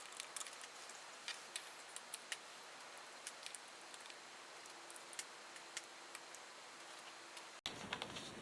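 Irregular light clicks and ticks of small tools and metal parts being handled during bench work, over a steady faint hiss. The sound drops out for an instant near the end.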